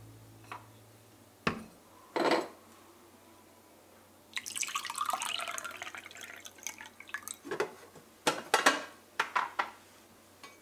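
A glass knocked down onto a wooden tray a couple of times, then iced tea poured into the glass over ice for a few seconds, followed by the ice cubes clinking against the glass.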